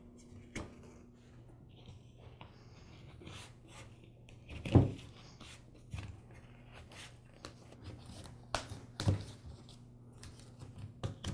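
Plastic clips of a Honda HRX217 grass bag being snapped back onto the bag's metal frame, with fabric rustling and hand handling between them. A few sharp clicks, the loudest about five seconds in and another pair near nine seconds.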